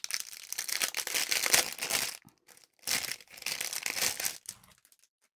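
Thin clear plastic wrapping crinkled and pulled off by hand, in two spells of crackling about two seconds each, with a short pause between them.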